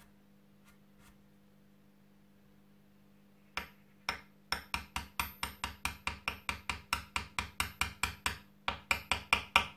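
Small hammer tapping lightly on a steel drift punch, driving glued toothpick plugs down into wormholes in a wooden musket stock. After a quiet stretch come two taps, then a quick run of light taps, about four or five a second, with a short pause near the end.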